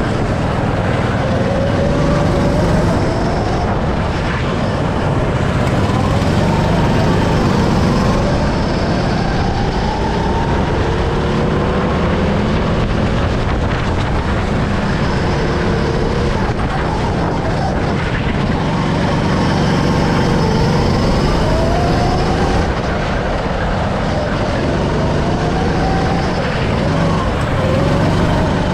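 Go-kart running at speed through a lap, its motor pitch rising for a few seconds at a time and then dropping back, several times over, over a steady rushing noise.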